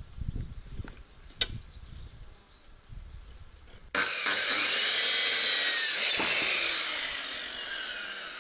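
Knocks and clatter of wooden boards being handled, then about four seconds in an electric saw starts abruptly and cuts through a raw pine board to length, a continuous loud rasp with a whine that wavers in pitch as the blade bites, easing off near the end.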